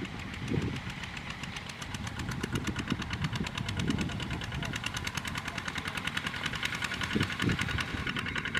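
Single-cylinder diesel engine of a two-wheel walking tractor pulling a cart loaded with rice sacks, running with a fast, even chugging that grows louder as it approaches.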